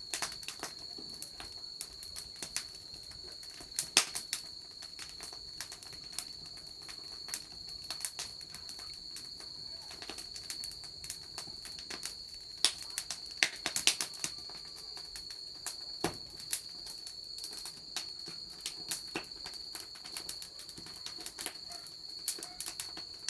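Wood fire crackling: irregular sharp pops and snaps, a few of them louder, over a steady high insect trill.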